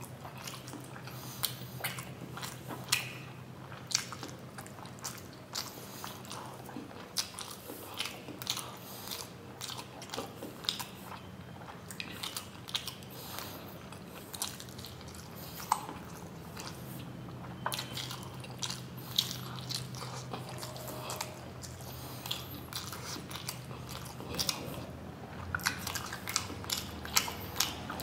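Close-up eating sounds of a person biting and chewing steamed paneer momos, with many short, sharp mouth clicks throughout. A steady low hum runs underneath.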